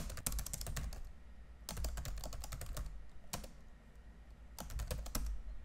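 Typing on a computer keyboard: several quick runs of keystrokes with short pauses between them, over a faint low hum.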